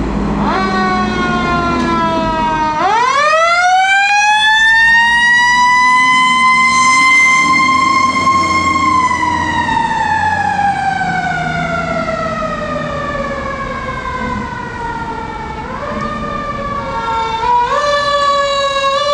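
Fire truck siren wailing. It sweeps up in pitch about three seconds in, peaks, and slides slowly down over several seconds, then jumps up again in quick steps near the end, with the truck's engine running underneath.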